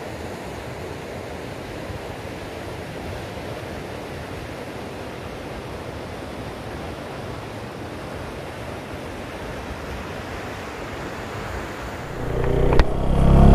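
Steady rushing of the Sutlej river's flowing water. Near the end a motorcycle engine comes in and quickly grows loud.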